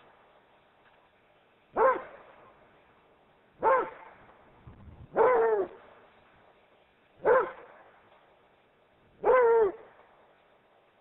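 Rhodesian Ridgeback barking, five single barks about two seconds apart, each dropping a little in pitch, a couple of them drawn out longer.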